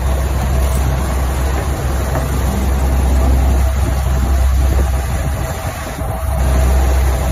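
Boat engine running steadily while the boat is under way, with a strong low hum and the rush of water from the wake.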